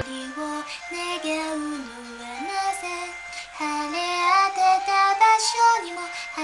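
A young woman singing an anime theme song unaccompanied, in a high, light voice that moves between held notes.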